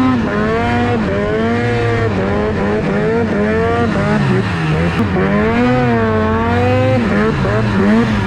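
2004 Ski-Doo Rev's rebuilt 800 H.O. two-stroke twin engine revving hard under load, its pitch rising and falling over and over.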